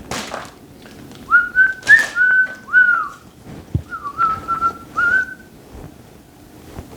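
A man whistling a short tune in two brief phrases with a pause of about a second between them, with a few faint clicks and a small knock of tools being handled.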